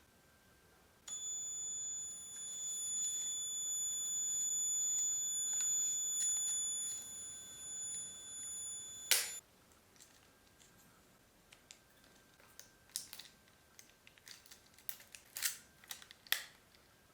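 Miranda 550 electronic camera flash charging with a steady high-pitched whine for about eight seconds, which stops at a single sharp click as the Olympus OM-10's shutter fires. A few faint handling clicks follow.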